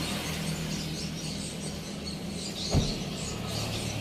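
A car door shuts with a single dull thump about three seconds in, over a steady low hum and high insect chirping.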